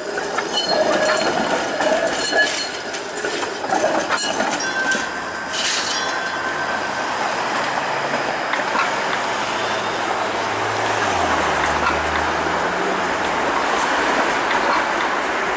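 Toronto Flexity Outlook streetcar on its track: wheels squealing and clicking over rail joints as it rounds the curve, giving way after about six seconds to a steadier rolling rumble with a low hum that rises near the end.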